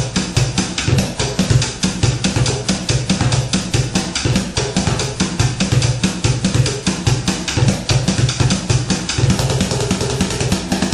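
Upturned plastic buckets played as a drum kit with wooden drumsticks: a fast, unbroken run of stick strokes mixed with deep thuds.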